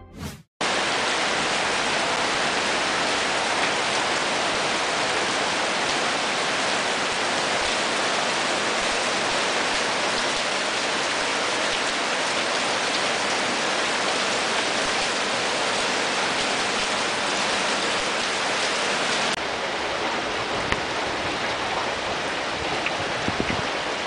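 Heavy rain pouring down in a steady, dense hiss, cutting in suddenly just after the start and dropping slightly in level about nineteen seconds in.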